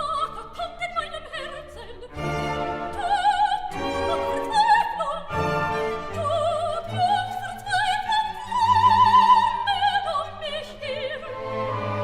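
Operatic singing with orchestral accompaniment: a voice with wide vibrato holding long notes.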